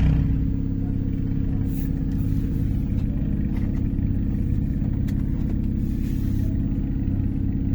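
Downpiped 1.6 turbo Renault Clio RS engine idling steadily after a brief swell in level right at the start.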